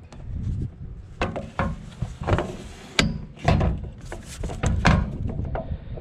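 A run of knocks and clunks, about seven of them spread over several seconds, from parts and tools being handled during work on a trailer's tongue jack.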